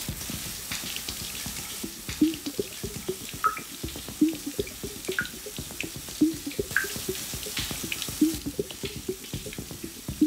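Shower water running in a steady spray, with a low thud repeating about every two seconds.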